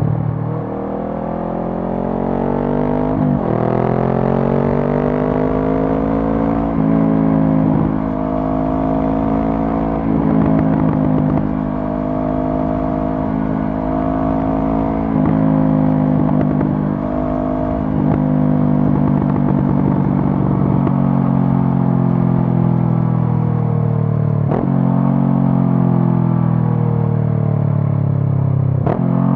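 Honda CB500F's 471 cc parallel-twin engine through a Mivv GP Pro aftermarket exhaust, heard while riding. The pitch climbs through a series of gear changes in the first half, then falls as the bike slows, with two short breaks near the end.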